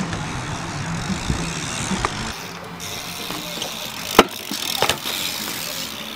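BMX bike on a concrete skatepark: tyres rolling with a steady hiss, broken by a few sharp knocks as the bike lands and hits the concrete, the loudest about four seconds in.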